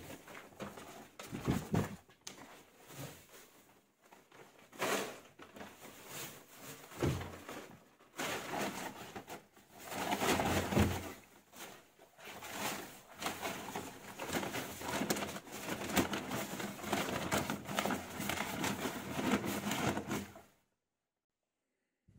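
Dry wood shavings rustling and crunching in irregular bursts as they are gathered and stuffed into a carrier bag; the sound stops near the end.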